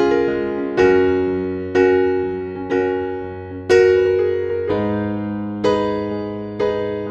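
Background music: piano chords struck about once a second, each one ringing and fading before the next.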